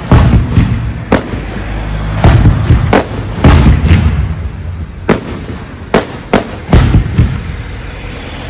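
Professional aerial fireworks display: shells bursting in quick succession, about a dozen sharp bangs with a low rumble and echo between them.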